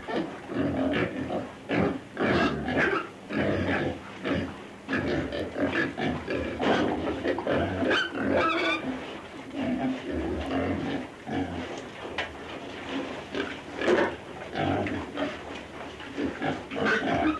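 Walrus grunting over and over in short, irregular calls.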